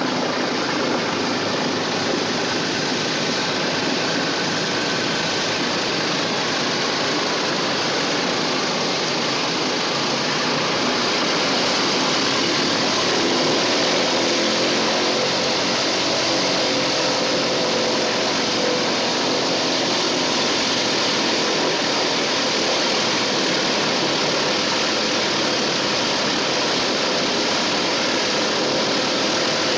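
Twin radial engines and propellers of a Douglas DC-3 heard from inside the cabin, running steadily as the airliner taxis, with a slight swell in level about halfway through.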